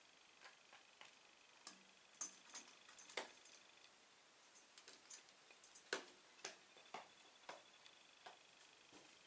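A domestic pigeon's beak pecking at a mineral grit pick stone: a series of sharp, irregular clicks at uneven intervals, some louder than others.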